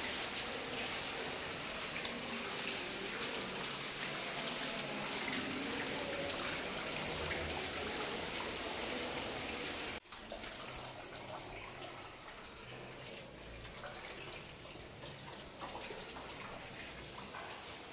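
Water running from a tap, a steady rushing flow; about ten seconds in the sound drops suddenly and goes on quieter.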